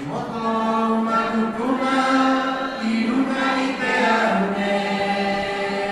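A group of voices singing a cappella in several parts, holding long notes and moving between them.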